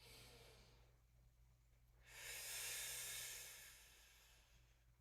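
Faint breathing of a woman exercising: a short breath at the start, then a longer, louder exhale about two seconds in.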